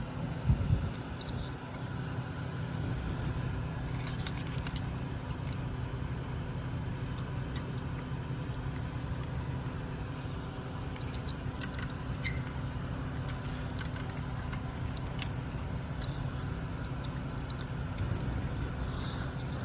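A steady low mechanical hum, with scattered small plastic clicks as buttons on BFT Mitto gate remotes are pressed and the remotes are handled during programming.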